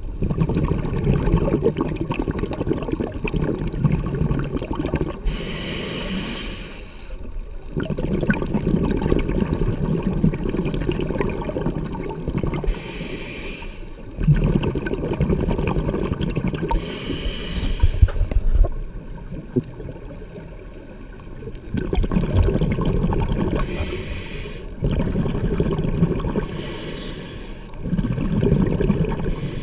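Diver breathing through a scuba regulator underwater. Five hissing inhalations through the demand valve sit between long bubbling exhalations that rumble and gurgle.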